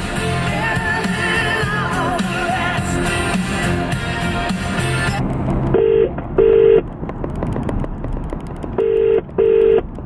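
Pop music playing over the car stereo cuts off about five seconds in, and a phone call over the car's speakers gives the British ringing tone: two double burrs, about three seconds apart, as the call waits to be answered.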